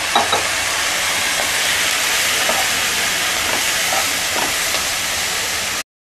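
Onions and freshly added sliced mushrooms sizzling in hot oil in a pan while being stirred with a wooden spatula: a steady hiss with faint scrapes of the spatula, cutting off suddenly near the end.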